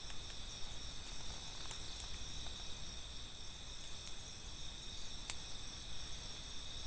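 Night-time chorus of crickets and other insects: a steady high trilling at several pitches at once, with a few faint clicks.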